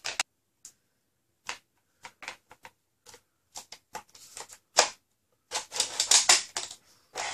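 Hard plastic parts of a foam-dart blaster clicking and knocking as a clear plastic stock is worked onto the body: scattered sharp clicks, with a quick flurry of them about six seconds in.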